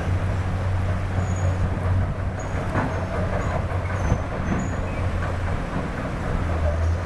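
Heavy diesel construction machinery running steadily: a continuous low engine rumble with a faint noisy wash above it.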